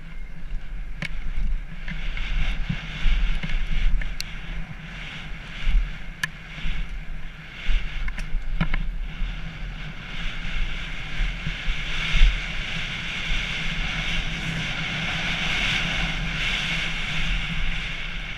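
Downhill mountain bike ridden fast: wind rushing over a helmet-mounted camera and tyres rolling over dirt and gravel, with scattered knocks and rattles from the bike over bumps. The rolling hiss becomes steadier in the second half on the open gravel track.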